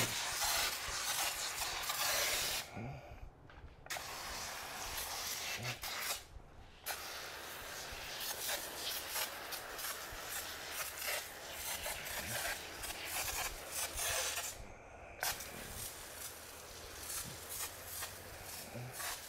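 IK Foam Pro 2 Plus pump-up foam sprayer spraying cleaner foam in a steady hiss that breaks off briefly three times.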